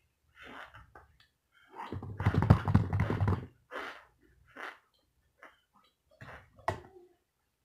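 Close-up mouth sounds of someone chewing and crunching baked cornstarch, with breaths through the nose in between. The loudest stretch comes about two seconds in, and there is a sharp click near the end.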